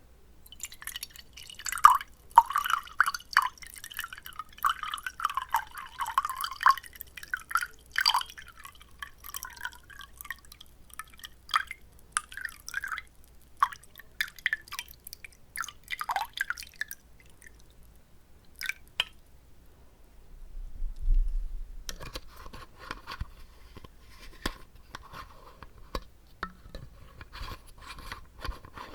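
Close-up wet mouth sounds: water swishing and popping in the mouth, a dense run of small wet clicks and pops, then sparser ones after a short lull, with a soft low bump about two-thirds through.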